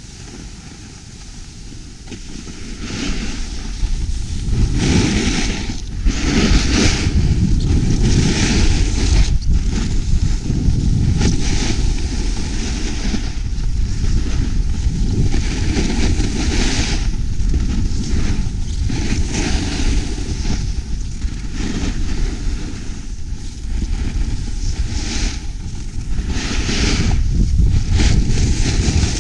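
Wind rushing over a GoPro Hero Session's microphone as it is carried down a ski slope, a heavy steady rumble that builds over the first few seconds as speed picks up. Over it, the hiss of skis scraping across packed snow surges about every two seconds with each turn.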